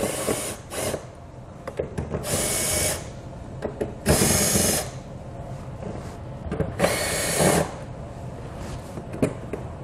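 Cordless drill spinning a 10 mm socket in about four short bursts, each under a second, backing out the bolts that hold the hood straps.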